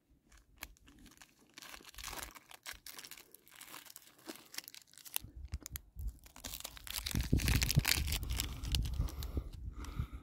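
Crinkly plastic wrapper of a Nature Valley Crispy Creamy Wafer bar rustling as it is handled and torn open, louder and fuller in the second half with a low rumble underneath.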